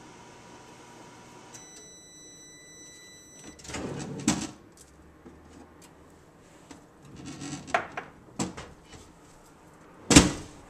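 Sharp microwave drawer finishing its run: the hum of the oven stops about one and a half seconds in and it sounds a steady beep for about two seconds. The drawer then slides open with a rumble, a mug of melted butter is handled and lifted out, and the drawer is pushed shut with a loud thud near the end.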